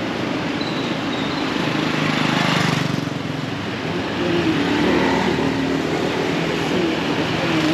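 Street traffic with small motorbike engines: a scooter passes close, loudest about two to three seconds in, and more motorbike engines run on over a steady traffic hum.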